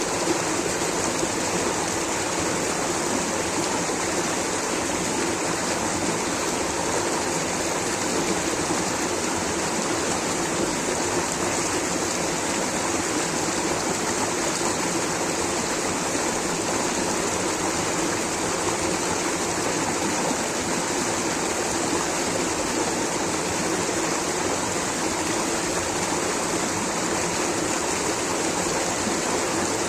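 Rushing water flowing steadily, an even unbroken hiss with no pauses or separate splashes.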